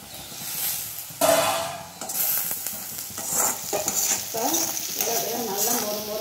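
A stainless steel plate lid is lifted off a kadai with a metallic clang about a second in. Then a spatula stirs and scrapes diced potatoes frying in the pan, with a sizzle and scraping of metal on metal.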